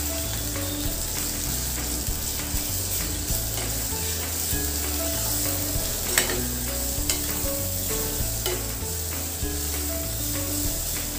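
Sliced onions, green chillies and ginger-garlic paste sizzling in hot oil in a kadhai as a spatula stirs them, with a few sharp knocks of the spatula against the pan in the second half.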